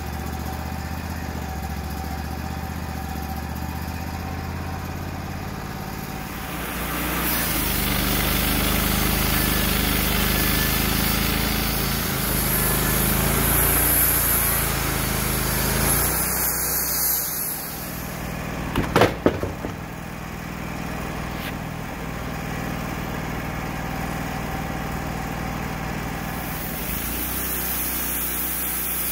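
Wood-Mizer LT35 portable band sawmill: its engine runs steadily, then from about seven seconds in the band blade cuts through a white oak log, louder and hissier, until about sixteen seconds in. A brief clatter of knocks follows, then the engine runs on steadily as the saw head travels back along the log.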